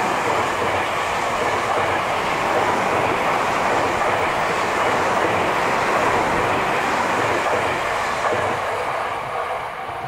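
Tobu 50000 series electric train passing at close range, its wheels and running gear making steady running noise on the rails. The noise fades near the end as the last car goes by.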